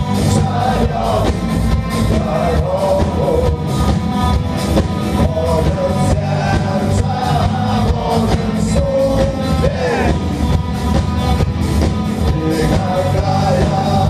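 Live rock band playing: electric guitars, bass and drums with a steady, driving beat and a melodic line wandering above it.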